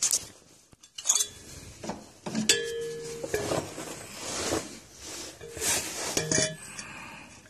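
Light metallic clinks and knocks among scraping and rustling, the sharpest knock about two and a half seconds in ringing briefly like struck metal.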